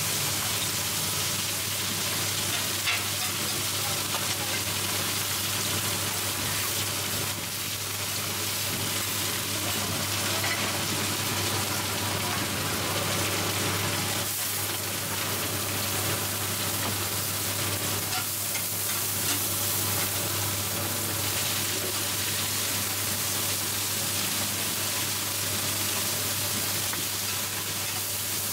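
Mussel and shrimp pancake batter frying in hot oil on a wide flat griddle pan, a steady loud sizzle, with metal spatulas scraping and knocking against the pan now and then. A steady low hum runs underneath.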